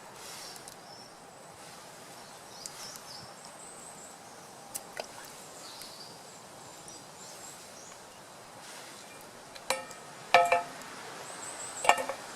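Woodland background with faint high chirps, then three short metallic clinks that ring briefly near the end, the sound of metal cookware being knocked or tapped during campfire cooking.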